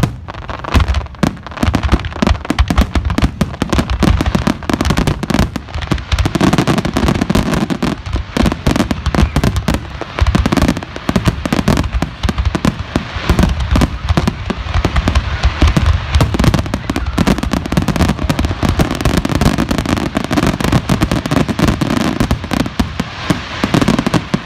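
Fireworks display: a dense, continuous barrage of bangs and crackling bursts overlapping one another, with a low rumble beneath.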